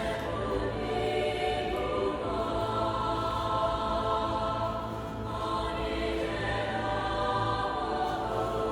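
Background music with sustained choir-like voices, steady throughout.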